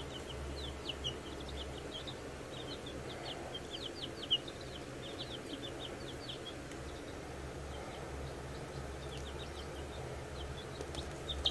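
Baby chicks peeping in a brooder: a steady stream of short, high cheeps, several a second, over a low steady hum, with one brief tap about four seconds in.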